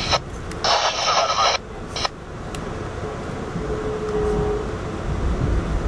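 A burst of radio static about a second long that starts and cuts off abruptly, over the steady low rumble of a moving passenger train heard from inside the car.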